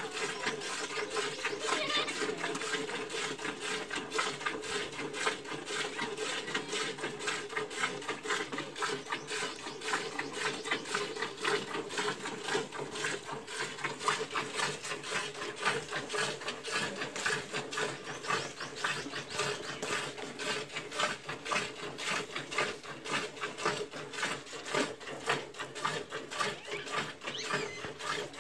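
Milk squirting into a metal pot as a cow is milked by hand, in quick, steady, even strokes.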